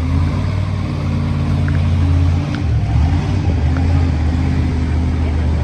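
An engine idling steadily with a low, even hum, wavering briefly about two and a half seconds in.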